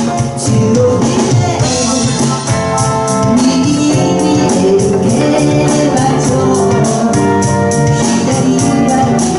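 A live pop band playing: a keyboard with an organ sound over bass and drums, with a steady high percussion beat.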